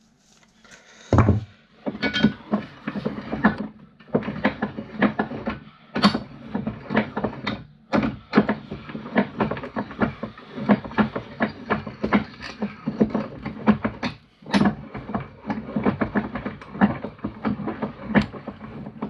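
Hand tools and metal parts of a desk fan motor being worked and handled on a bench: a busy, irregular run of clicks, taps and knocks as the motor is taken apart.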